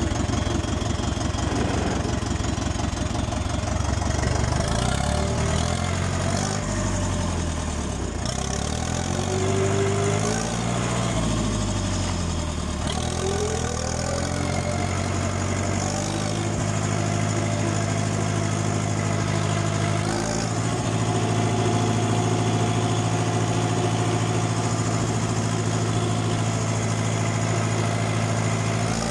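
Ursus C-355 tractor's diesel engine running under way through a stainless-steel Suprowski exhaust muffler. The engine speed rises and falls several times in the first half, then holds steady from about halfway.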